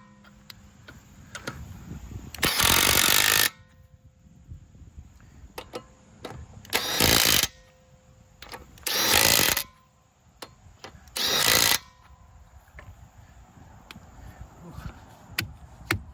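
Cordless Kobalt 24-volt brushless 1/2-inch impact wrench hammering on a car's lug nuts in four short bursts of about a second or less each. Small clicks and clinks come between the bursts.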